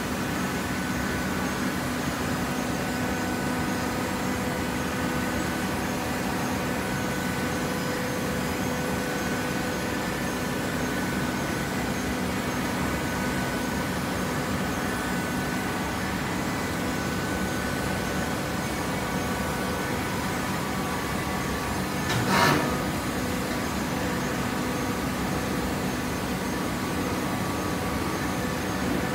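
Steady machine hum of a running industrial horizontal baler, carrying several steady tones. A short noisy burst, the loudest sound, comes a little over twenty seconds in.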